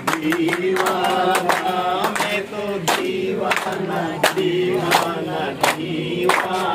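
A group of men singing an Uttarakhand Holi song together in chorus, clapping their hands about once a second to keep time.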